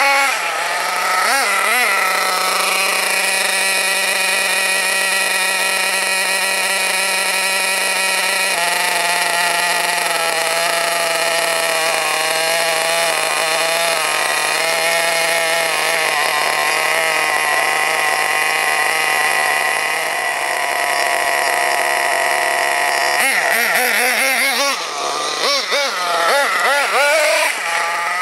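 Small nitro RC car engine idling steadily for most of the stretch, with revving as the cars drive at the start and again near the end.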